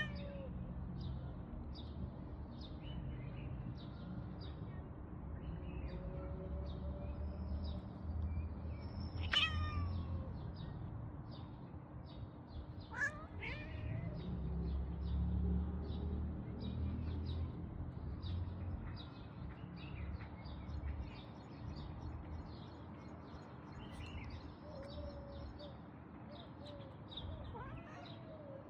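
A cat meowing about five times, the calls spread out with pauses between them. A rapid high chirping runs steadily underneath.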